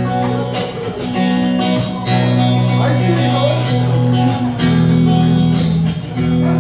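Guitar-led instrumental introduction to a song, with held chords that change every couple of seconds and regular strummed or struck accents.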